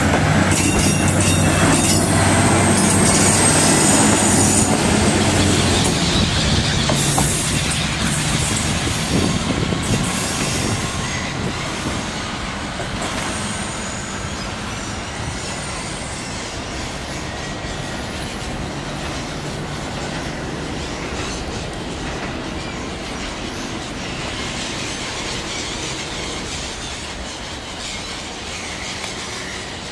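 Single-car diesel railcar pulling away and fading into the distance, its engine throbbing loudly at first, with long high-pitched squeals from its wheels on the curving track during the first half.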